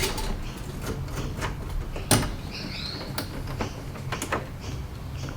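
Irregular light clicks and knocks, with a sharper one about two seconds in, over a low steady hum.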